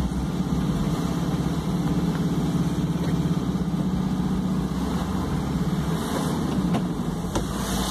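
Car engine running while driving, heard from inside the cabin: a steady low drone with road noise.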